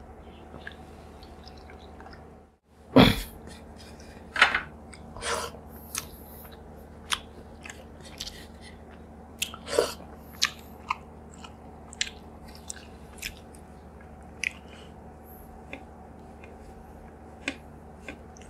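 Close-miked mouth sounds of a person eating rice and fried fish: chewing with irregular wet smacks and clicks, the loudest about three seconds in.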